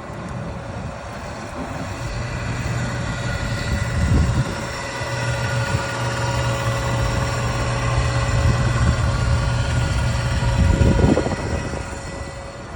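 York commercial HVAC unit running: a steady mechanical drone of fan and compressor with a strong low hum and a few steady whining tones above it. Two brief louder rumbles come through, about four seconds in and near the end.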